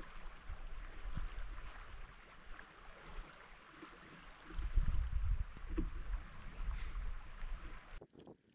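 River water running over a shallow run, a steady hiss, with wind buffeting the microphone in low rumbling gusts that are strongest about halfway through; the sound cuts off abruptly near the end.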